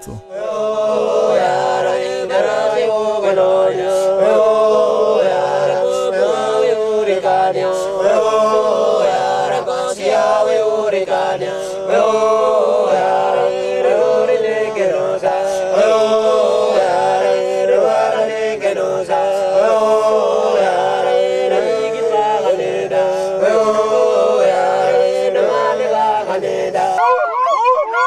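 Group of Papuan men singing a traditional welcoming chant in unison, with a sharp accent about every two seconds. About a second before the end the chant stops and a single wavering, higher voice begins.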